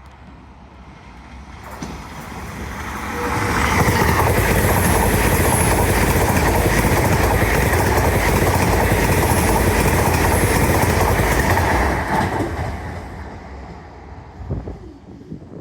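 A GWR Class 800 train passing over the level crossing. Its roar builds, stays loud for about eight seconds as the carriages go by, then falls away.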